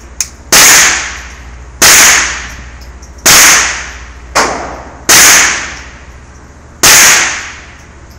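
Kriss Vector .45 ACP submachine gun fired in single shots: five loud reports spaced about one and a half seconds apart, each ringing out with the echo of an indoor range. Two fainter sharp cracks fall between them.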